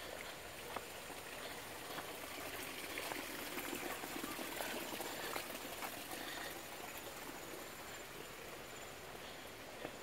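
Water trickling and running through flooded rice paddies and their irrigation channels, a steady hiss that grows louder for a few seconds in the middle, with a few light ticks.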